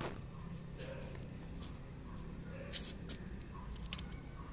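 Knife cutting into a sweet lime by hand: a few soft, scattered clicks and squishes over a steady low background hum.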